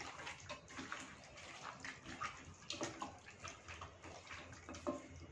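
Hands mixing chicken pieces into a wet curd-and-spice marinade in a stainless steel bowl: faint, irregular squishing and rubbing.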